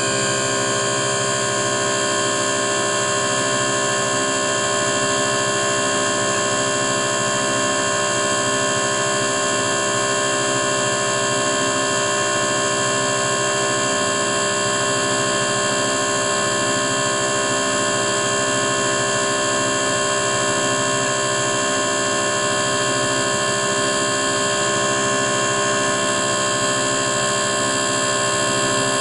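Common rail injector test bench running: its drive motor turns the high-pressure pump at 800 rpm and holds rail pressure at 100 MPa while a Bosch injector is tested. It makes a steady mechanical hum and whine that does not change.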